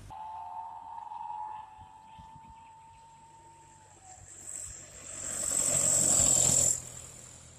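Truck traffic on a climbing mountain road. First a faint steady high whine slowly falls and fades, then a light truck drives past close by, its engine noise swelling to a loud peak before cutting off abruptly.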